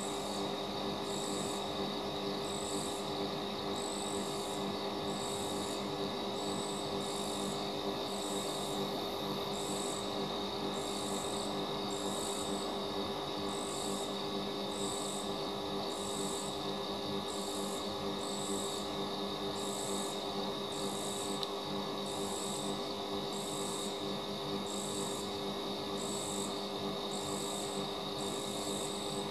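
Night insects calling: a high chirp repeating evenly a little more than once a second over a steady high-pitched trill. No thunder is heard.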